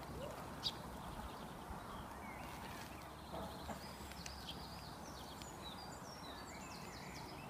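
Faint outdoor street ambience: a steady low background hiss with a few faint short high chirps in the second half and an odd small click.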